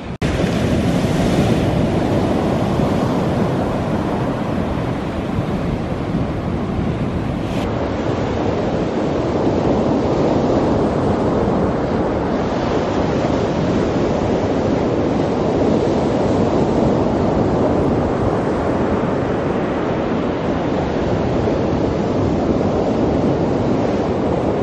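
Ocean surf breaking on a beach, a steady rush of waves mixed with wind on the microphone. The sound turns a little duller from about eight seconds in.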